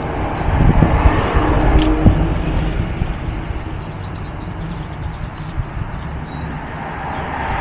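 Wind rumbling on the microphone, with small birds chirping in the background and a few light handling clicks.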